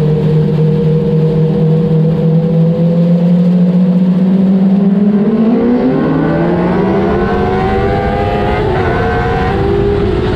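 Modlite race car engine heard from inside the cockpit, running at steady revs, then rising in pitch from about halfway as the car accelerates, with road and chassis noise underneath.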